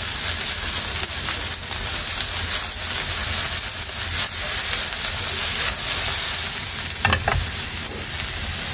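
Shredded cabbage and potato sizzling as they fry in a nonstick pan: a steady, even hiss of hot oil.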